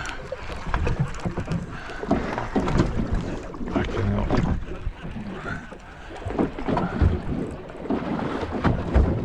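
Wind buffeting the microphone aboard a small fishing boat on the water, with irregular knocks and bumps throughout.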